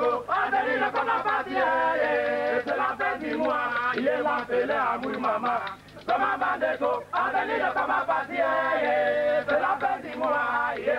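Men's voices chanting unaccompanied, in long held, wavering notes, with a short break about six seconds in.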